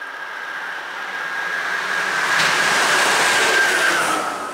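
Pesa Gama 111Ed electric locomotive running light past at speed: a rush of wheels and air that swells to a peak and then fades, with a steady high whine that drops in pitch as it goes by.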